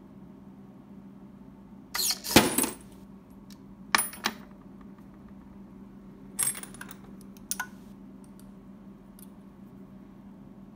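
Brass rifle cases clinking against each other and the aluminium foil tray: a loud metallic clink about two seconds in, the kind made as an annealed case drops from the induction coil into the tray, then lighter clinks about four, six and a half and seven and a half seconds in. A steady low hum runs underneath.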